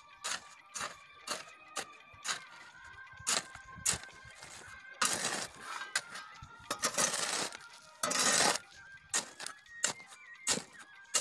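Steel shovel scraping on a concrete floor and scooping and tipping crushed-stone gravel mix, with sharp clinks of stones against the blade and three longer scraping rushes about five, seven and eight seconds in.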